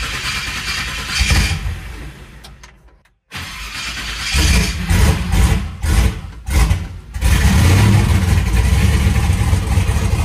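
Twin-turbocharged 5.3-litre LS V8 starting for the first time on a new base tune: it runs unevenly and fades out about three seconds in, then is heard running again, louder and uneven with brief breaks, before settling into steady running about seven seconds in.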